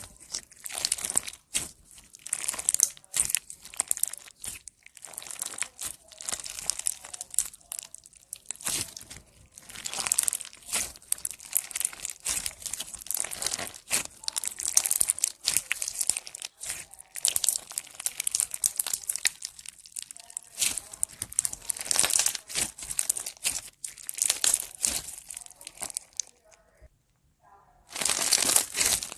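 Slime being handled by hand, giving dense runs of crackling and crinkling in clusters with short pauses; it goes nearly quiet for a second or so near the end.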